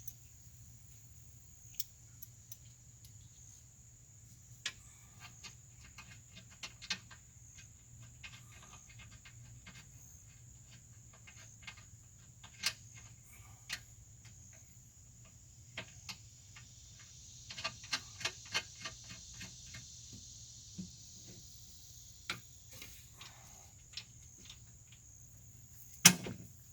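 Scattered metallic clicks and taps of hand tools and steel suspension parts as a front suspension arm is fitted to an Audi A8L. A quick run of clicks comes about two-thirds of the way through, and a sharp knock comes near the end.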